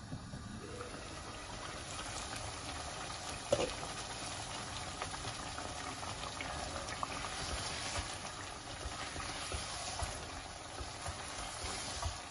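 Chicken korma bubbling and sizzling with small crackling pops in a non-stick pot, at the bhuna stage where the yogurt-and-onion masala is fried down with the chicken. There is one sharp knock about three and a half seconds in, and a spatula stirring the pot near the end.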